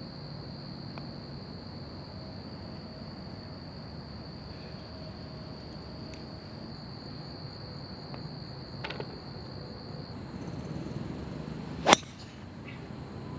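Steady high-pitched chirring of crickets, with a single sharp crack near the end: a golf club striking the ball on a full tee shot.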